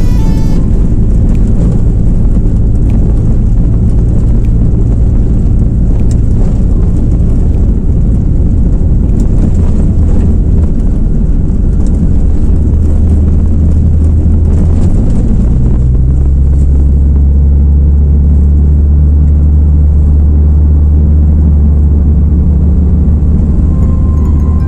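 Steady low engine and road rumble of a moving car, heard from inside the cabin. The rumble deepens and grows about fifteen seconds in.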